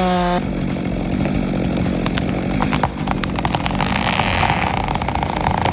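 Chainsaw running during tree felling, with a run of sharp cracks about two to three seconds in and a steadier buzz from about four seconds in.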